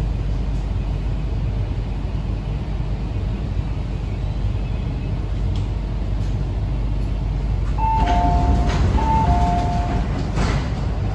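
Cabin of an MTR C-train electric multiple unit running with a steady low rumble as it pulls into a station. About eight seconds in, an electronic two-tone chime sounds twice.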